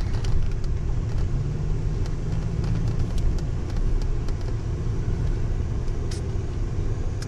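Car driving, heard from inside the cabin: a steady low rumble of engine and road noise. The engine's hum comes up stronger for about two seconds, starting a second or so in.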